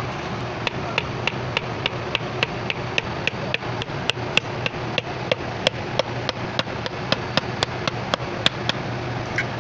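A hammer striking metal in quick, even blows, about three or four a second, each with a short ring, over a steady low hum.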